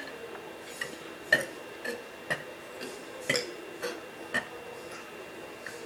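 A boy's mouth and throat making a series of short clicks and small gulps, about two a second, the loudest about a second and a half in.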